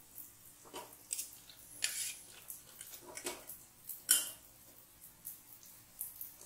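Steel spoon clinking and scraping against a steel pot as jalebis are lifted out of sugar syrup: a string of irregular light clicks and scrapes.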